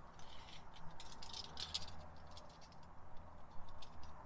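Light, irregular clicks and rattles of a tape measure being handled and its blade pulled out to measure a camping cot.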